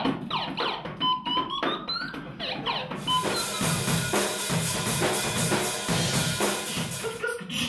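Drum kit played live in a fast, busy rhythm, with cymbals washing over the drums from about three seconds in. Before that, gliding tones rise in pitch over sparser drum hits.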